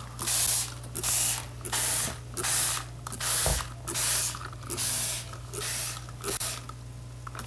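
Hand spray bottle misting water onto kitchen-towel bedding, in a run of short hissing squirts a little more than one a second that weaken toward the end.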